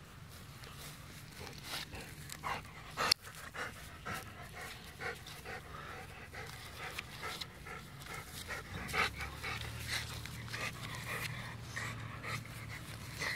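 A Rottweiler panting in quick, rhythmic breaths while tugging on a stick, with one sharp click about three seconds in.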